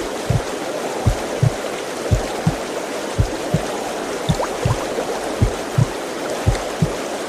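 Womb sound for lulling a baby: a slow double heartbeat, a pair of deep thumps about once a second, over a steady whooshing rush.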